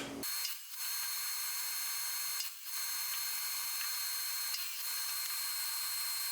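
A power saw cutting 2x3 lumber into cross pieces, heard as a steady thin hiss with brief dips about every two seconds.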